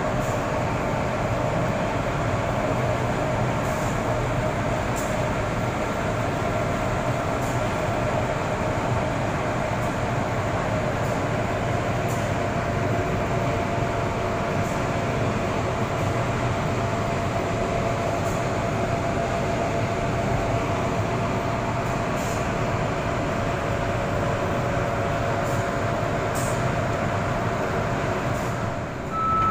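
Steady mechanical drone of heavy engines and machinery, with a constant whine running through it and no change in pace.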